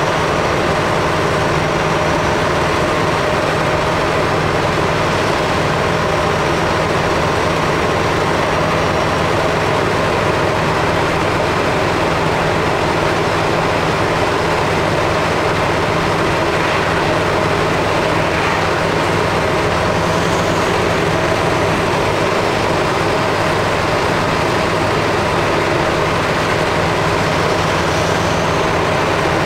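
Scania R500 V8 Topline truck heard from inside its cab while cruising: the V8 diesel engine runs with a steady, even drone over a constant hiss of road noise.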